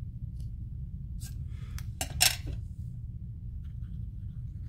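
Small clicks and light knocks of paper pieces and craft tools being handled on a work table, with a louder clatter about two seconds in, over a steady low hum.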